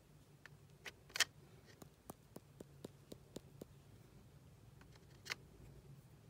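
Faint sharp clicks and taps from a water brush pen being handled over an art journal page, coming about three a second for a stretch, with two brief louder scratchy bursts, one about a second in and one near the end.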